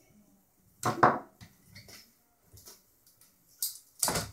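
Hand tools knocking and clattering as a screwdriver is put down and another picked up: a sharp knock about a second in, a few light clicks, then two more knocks near the end.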